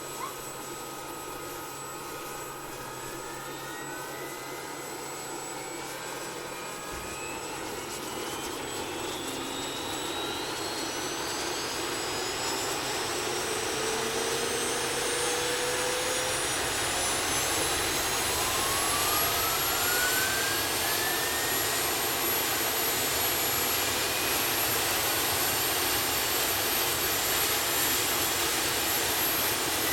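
CH-47 Chinook helicopter's twin T55 turboshaft engines whining: the whine rises in pitch and grows louder over about twenty seconds, as when the turbines spool up, then holds steady at a high pitch over a dense rushing hiss.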